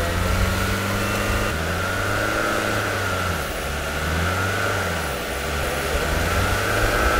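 Range Rover Evoque engine revving up and down several times while its front wheels spin in soft sand; the SUV is stuck.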